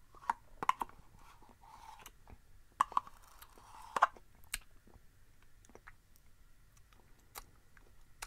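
Close-up sounds of a person eating yogurt with a metal spoon: wet mouth and swallowing sounds with irregular sharp clicks of the spoon against the plastic cup and mouth, the loudest clicks about three and four seconds in.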